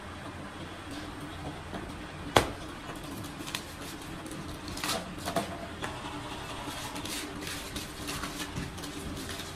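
A knife cutting and scraping through the rubber insulation of scrap copper cable: one sharp knock about two seconds in, then small scattered scrapes and clicks. A steady low hum runs underneath.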